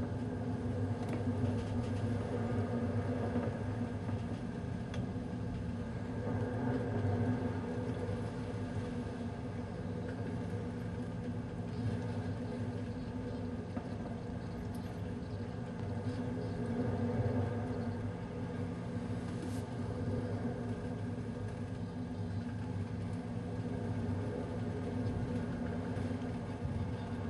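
Steady low drone of a large ferry's engines and hull vibration, a fixed hum of several tones that swells slightly twice.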